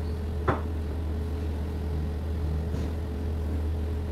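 Steady low background hum with one sharp tap about half a second in.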